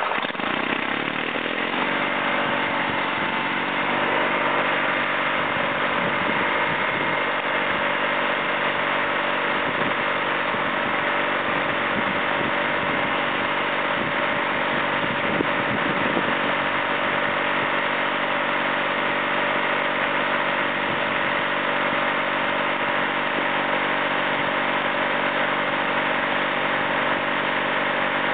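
Twin-cylinder 18 hp Briggs & Stratton gasoline engine of a mobile water chiller, just started, settling in the first couple of seconds and then running steadily while it drives the unit's automotive-type refrigeration compressor and water pump.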